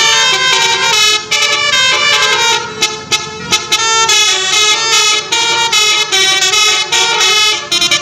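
Telolet basuri musical air horn on a tour bus playing a fast, loud melody of short stepped notes, with a few brief breaks.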